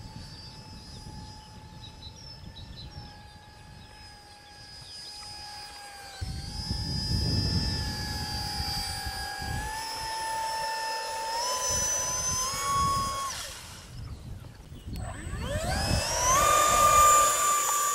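Electric ducted fan of a small 3D-printed RC jet whining in flight, its pitch rising in steps. The whine cuts out about thirteen seconds in, then climbs steeply a couple of seconds later to a higher, louder whine.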